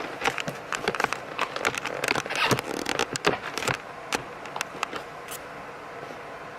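A rapid, irregular run of sharp clicks and taps that thins out about four seconds in, leaving a quieter steady hiss.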